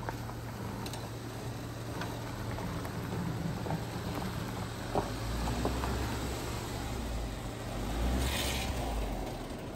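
Jeep Wrangler Rubicon crawling past slowly in four-wheel low, its engine a steady low hum at crawling revs, with tyres crunching over dirt and small knocks from the rough track. The engine swells as the Jeep comes closest near the end.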